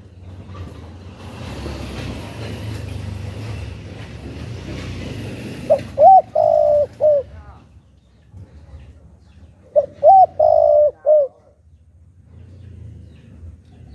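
Spotted dove cooing: two phrases about four seconds apart, each a short rising note, a long held coo and a short clipped note at the end. A rushing background noise fills the first few seconds.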